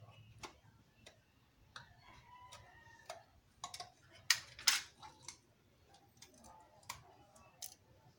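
Sharp clicks and light knocks of a plastic engine-oil bottle and a small hand tool being handled at the bottle's neck and cap, with two loud clicks close together about four seconds in.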